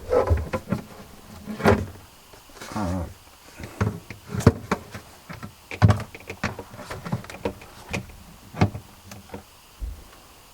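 Plastic casing inside a Samsung RF217 refrigerator being handled after unclipping: a string of plastic clicks, knocks and rattles, with a brief creak about three seconds in.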